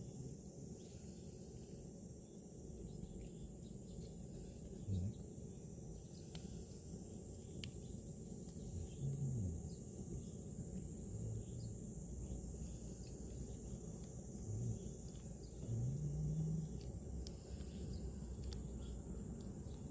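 Steady high-pitched chirring of insects, with a few short low sounds rising above it now and then.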